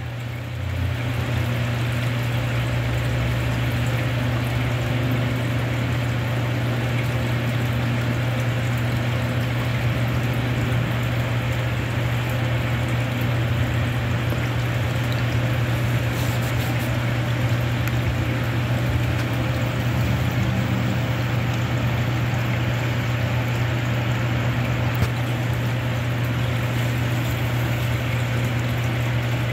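Wind blowing through trees and fallen leaves outside a window screen: a steady rushing noise over a constant low hum.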